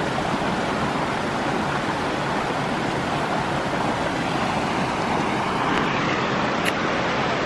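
Small mountain stream rushing steadily over rocks and logs.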